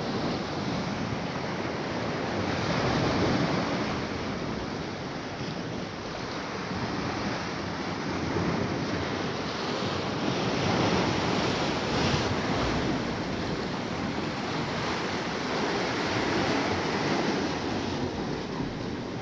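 Sea waves washing and breaking against a rocky shore, the surf surging and easing every few seconds.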